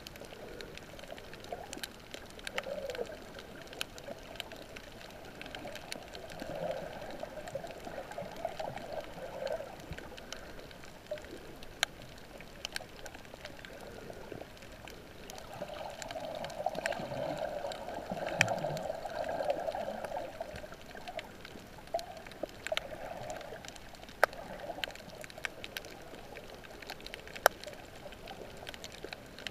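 Underwater water noise heard through a camera housing: a steady, uneven wash of moving water, dotted throughout with sharp crackling clicks, swelling louder about halfway through.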